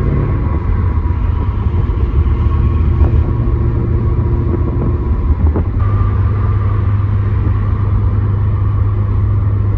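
Cabin sound of a BMW E34 540i's 4.0-litre V8 running while driving, with road noise. The engine note changes about six seconds in and then holds steady.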